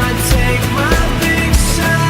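Rock music with drums and guitar, loud and steady.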